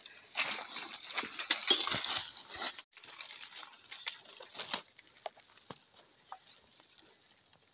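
Leaves and dry undergrowth rustling and crackling as a leafy plant is grasped and pulled by hand, loudest for the first three seconds. After that come scattered small snaps and clicks.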